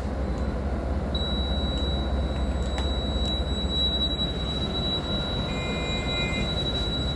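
City bus engine idling with a steady low hum. About a second in, a thin, steady, high-pitched electronic tone starts and holds on, and a short lower two-note tone sounds near the end.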